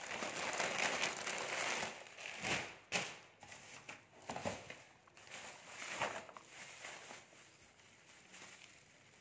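Plastic bags and clothing packets crinkling and rustling as they are handled and opened, densest for about the first two seconds, then a few scattered rustles and clicks that die away.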